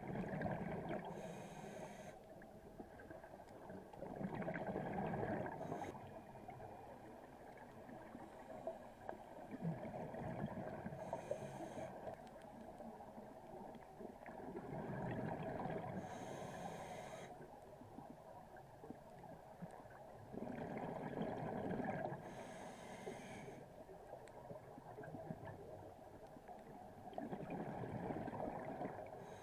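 Scuba diver breathing through a regulator underwater: a short hiss on each inhale and a longer bubbling rush of exhaled air. There are about six breaths, one every five or six seconds.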